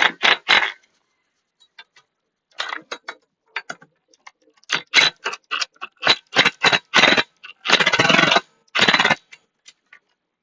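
Hand socket ratchet clicking in short back-and-forth strokes while tightening an exhaust mounting bolt, a few scattered strokes first, then a quicker run of strokes with two longer stretches of clicking near the end.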